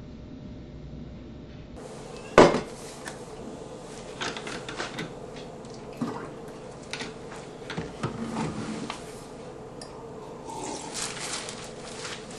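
Dishes, pots and pans clattering, with one loud bang about two seconds in followed by a scatter of clinks and knocks.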